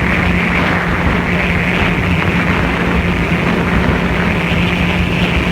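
Watercraft engine running at steady high speed: an even drone holding one constant pitch, under a heavy rush of wind and water noise with wind buffeting the microphone.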